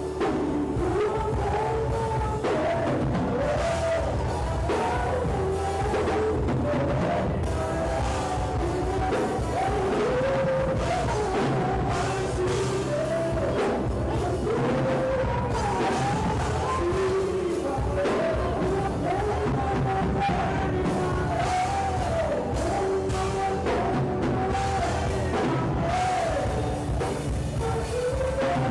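Worship music: voices singing a melody over instrumental backing, steady throughout.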